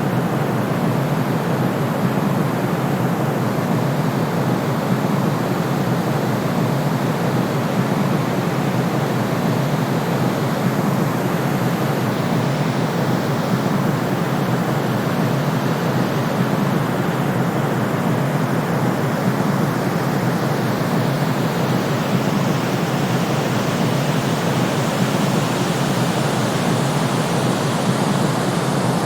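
Continuous white noise for baby sleep: an even, unbroken rushing hiss at a constant level, heavier in the low and middle range than in the highs.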